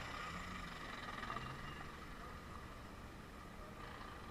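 Off-road jeep engines running as the vehicles creep past at walking pace: a steady low rumble.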